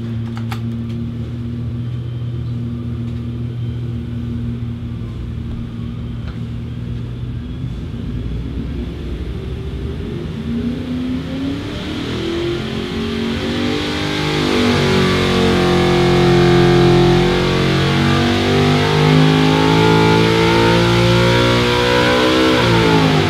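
349 cubic-inch LS V8 (6.2L aluminum block with a 4.8L crank and a solid roller cam) running on an engine dynamometer. It runs steadily for about ten seconds, then climbs in pitch and gets louder through a full-power pull to high rpm, and drops off sharply near the end as the pull finishes.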